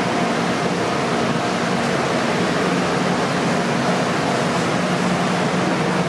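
Distillery machinery running: a steady rushing noise with a low, even hum.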